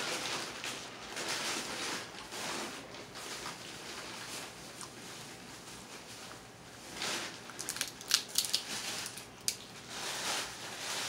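Cooked crab-leg shells being cracked and picked apart by hand, a crackly crunching and peeling, with a quick run of sharp snaps about eight seconds in.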